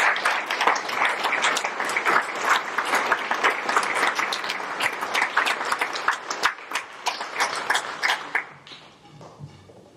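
Audience applauding, many hands clapping densely, then thinning and dying away about eight and a half seconds in.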